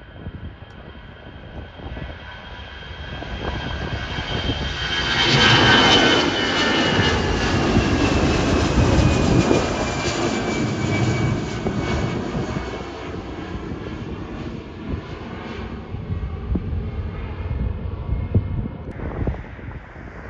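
Jet airliner passing by, its engine whine growing loud, peaking about six seconds in, then fading as the pitch slowly drops.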